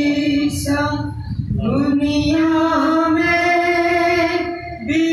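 A man singing a manqabat (a devotional poem) into a microphone in a high voice. A phrase ends about a second in, then comes one long note held for over two seconds, and a new phrase begins near the end.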